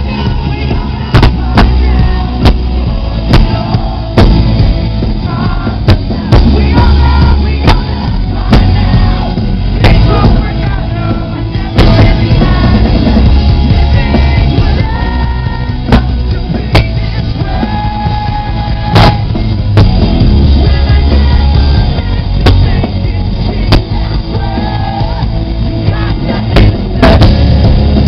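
Post-hardcore rock band playing live and very loud, with pounding drums, heavy guitars and singing, harsh and distorted from being recorded right beside the stage speakers.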